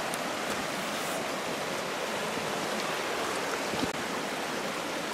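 Steady rushing of a shallow river flowing over a gravelly bed.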